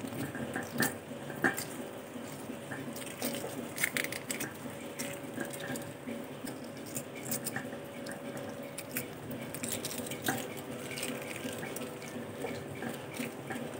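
Shell of a hard-boiled chicken egg cracking and crinkling as it is peeled by hand: scattered small clicks and light wet squishing, over a steady low hum.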